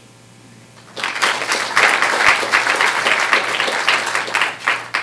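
Audience applauding, starting about a second in and stopping suddenly near the end.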